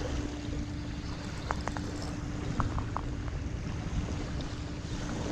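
Wind rumbling on the microphone, with a steady low hum underneath and a few faint short ticks about one and a half to three seconds in.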